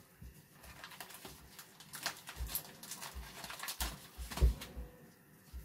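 A utensil clicking and scraping in a plastic bowl of batter as sausages are dipped, busiest in the middle, over soft low thumps.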